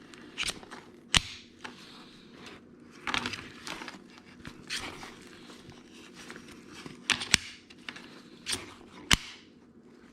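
Sling bag buckles being snapped shut and released: a handful of sharp clicks, two pairs close together in the second half, with rustling of the bag's fabric and straps between them.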